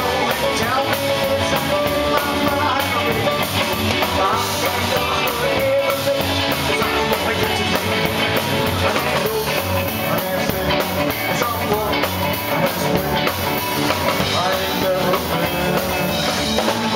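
Live rock and roll band playing: a male singer sings into a microphone over a hollow-body electric guitar and drums.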